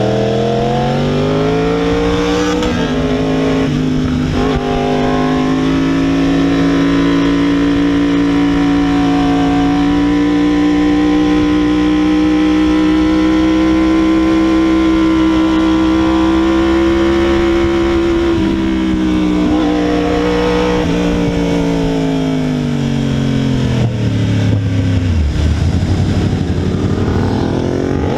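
2016 Yamaha R1's inline-four with a cat-delete exhaust, heard onboard at track speed. The revs climb through two quick upshifts in the first few seconds and then hold almost steady for a long stretch. They fall away in steps as the bike slows and downshifts, then pick up again near the end.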